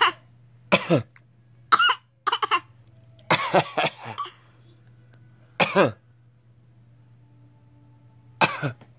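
Short coughs in quick succession, a father coughing and his seven-month-old baby copying him with fake coughs, each one falling in pitch; after a pause there is one last cough near the end.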